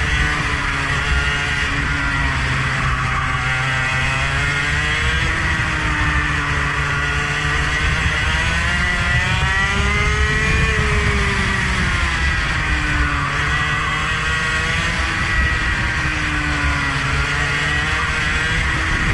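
A motor vehicle's engine lapping a circuit, its revs climbing and dropping again and again through the corners and straights. A steady low rumble runs underneath.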